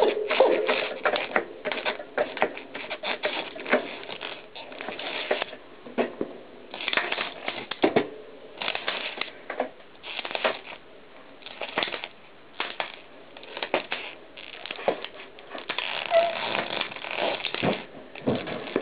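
Knobby mountain-bike tyre rolling over and crushing broken plastic tape-cassette pieces, a dense run of irregular cracks and crunches.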